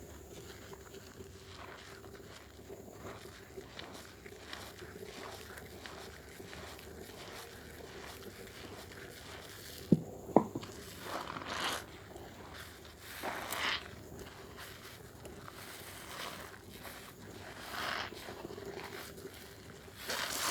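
Bar of Dermythol soap being lathered with water: wet rubbing and squishing strokes, soft at first and louder in the second half. Two sharp knocks come about halfway through.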